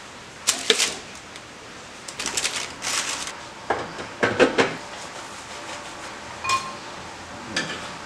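Kitchen clatter of bowls and utensils being handled: a string of knocks and clinks, with one short ringing clink about six and a half seconds in.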